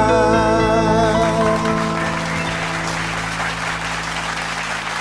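A live band's closing chord, with cello, rings out and slowly fades at the end of a song, while applause builds from about two seconds in.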